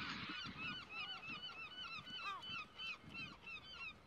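A flock of birds calling: many short chirps that rise and fall in pitch, overlapping in quick succession, thinning out near the end.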